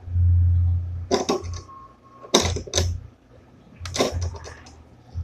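Hard parts of a live-streaming kit being handled: short bursts of clicking and clattering, three times, with a loud low rumble of handling noise in the first second.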